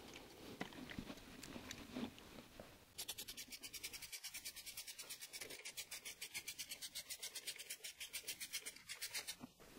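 Faint handling clicks, then from about three seconds in a ratchet clicking rapidly and evenly, about nine clicks a second, stopping abruptly near the end, as the ignition coil is bolted back onto the engine.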